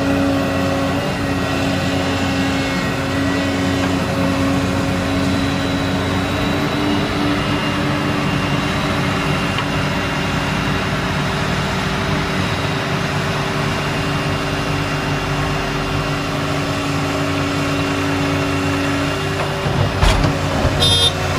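Volvo EC160C excavator's diesel engine running steadily under load as it digs clay and swings the boom. About a second before the end there is a brief thump and clatter as a bucketful of clay drops into the steel bed of a dump truck.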